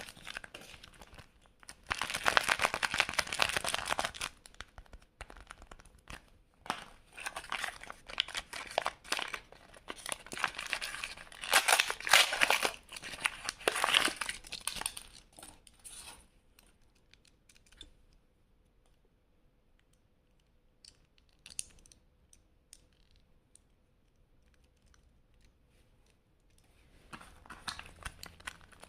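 Plastic blind-bag wrappers crinkling and tearing as they are opened by hand, in bursts through the first half. A quieter stretch follows with a few small clicks, and the crinkling starts again near the end.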